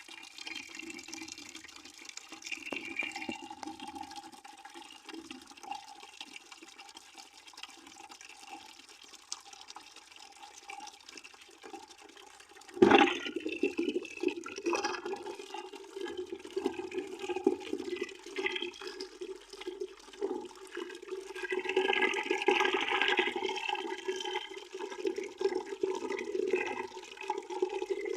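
Water running in a stream into a bucket. About halfway through there is a sudden loud thump, after which the water runs louder.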